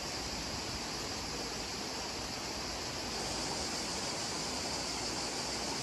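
Steady outdoor ambience: a river running over stones, with a constant high-pitched insect buzz on top.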